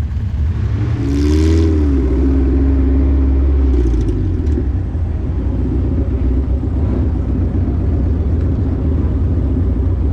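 Honda Civic's B-series four-cylinder engine running, with a short rev that rises and falls about a second in, then running steadily.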